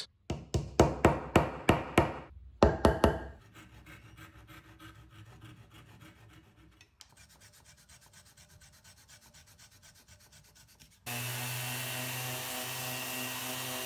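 Flush-cut hand saw cutting glued-in wooden dowel plugs off flush, about three quick strokes a second, loud at first and then fainter. About eleven seconds in, a random orbital sander starts and runs steadily with a low hum.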